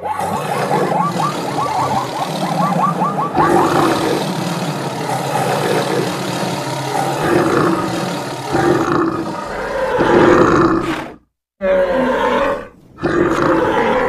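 Animal stampede sound effect: many animal calls layered over the continuous noise of a running herd, with a quick run of short repeated calls in the first seconds. The sound cuts out completely for a moment about eleven seconds in and dips again shortly after.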